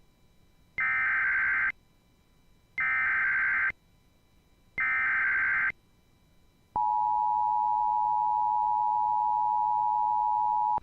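Emergency Alert System SAME header: three identical bursts of warbling data tones, each about a second long with a second's gap between them. About a second after the last burst comes the EAS two-tone attention signal, a steady buzzy chord held for about four seconds. Together they mark the start of an emergency alert broadcast.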